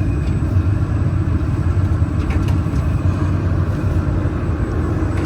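Steady low hum of the fiber laser welding machine's running cooling equipment: the water chiller and fans running evenly.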